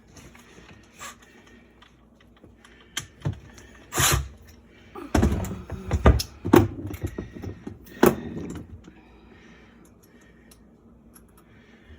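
Irregular knocks and clunks from dishwasher parts and screws being handled and fitted during reassembly: single knocks about 1 and 3 seconds in, a louder one about 4 seconds in, a quick cluster between about 5 and 6.5 seconds, and one more near 8 seconds.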